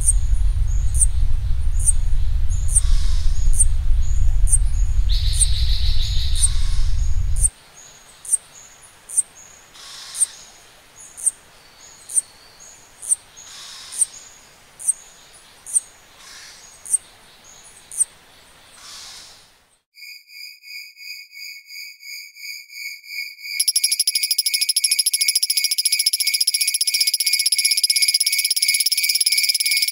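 Soundtrack ambience made of short, high chirps repeating about once or twice a second, over a low rumble that stops about seven seconds in. Near twenty seconds in, a clean, pulsing trill of several steady high tones starts, and it turns into a louder, continuous trill about three seconds later.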